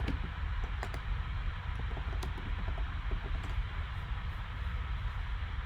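A few computer keyboard keystrokes, most of them in the first second or so, over a steady background hiss and hum.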